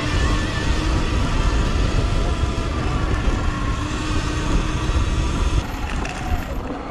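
Sur-Ron electric off-road bike being ridden over rough ground: heavy wind and road rumble on the microphone with a steady motor whine on top. The rumble drops off a little over a second before the end.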